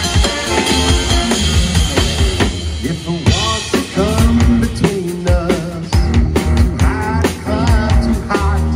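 Live swing band playing an instrumental passage, driven by a drum kit with snare rimshots and bass drum under bending melodic lines.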